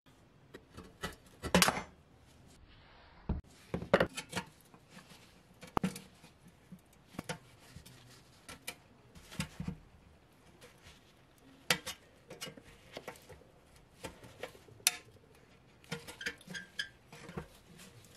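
Small metal parts and tools clinking and knocking on a work surface in irregular taps and clicks, with a few louder knocks in the first four seconds.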